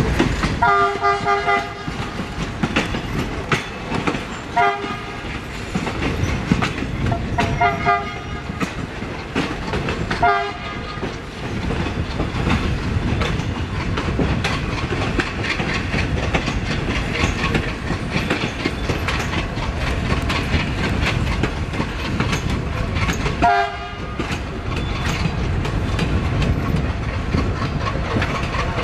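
Indian Railways diesel locomotive horn sounding short multi-tone blasts: four in the first eleven seconds, the first about a second and a half long, and one more near the end. Underneath runs the steady rumble and clickety-clack of train wheels over rail joints.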